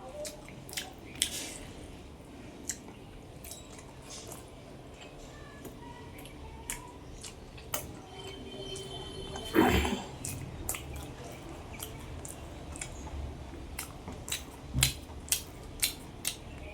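Close-miked eating: wet chewing and sharp lip-smacking clicks scattered throughout, with one louder, longer mouth noise about ten seconds in.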